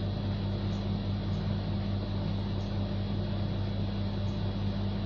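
Steady low hum with an even hiss behind it, unchanging throughout.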